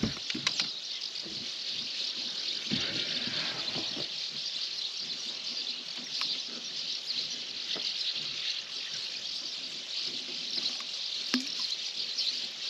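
Water splashing and dripping at the side of a boat as a hooked zander is brought in and lifted out by hand, with a few short splashes. A steady high hiss runs underneath.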